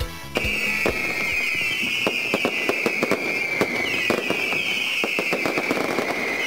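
Fireworks: a rapid, unbroken string of bangs and crackles over a high whistling, starting as dance music cuts off about a third of a second in.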